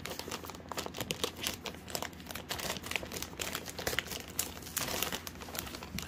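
Brown kraft-paper shipping mailer crinkling and rustling in a steady run of irregular sharp crackles as it is handled and opened by hand.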